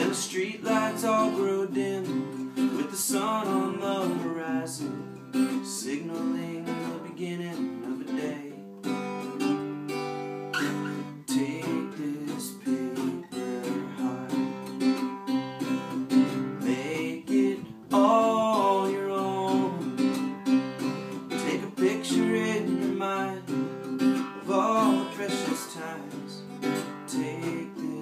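Acoustic guitar strummed with a pick, playing chords in a steady rhythm.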